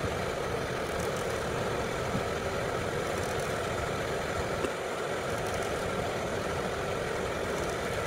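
Vevor 5 kW diesel air heater running steadily on its highest setting, level 6, with its glow plug now off and the burner running on its own: an even, unbroken blowing noise from its combustion and air fans.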